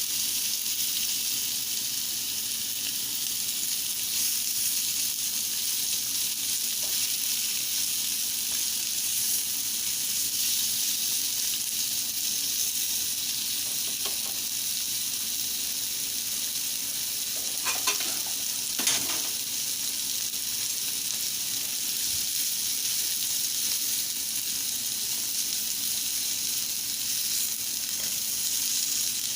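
Seasoned chicken sizzling as it sears and chars over high heat, a steady hiss. Two brief knocks about two-thirds of the way through.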